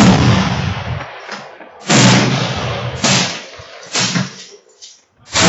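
Rifle shots at a range: three sharp reports about a second apart, with another right at the end, each ringing off over most of a second.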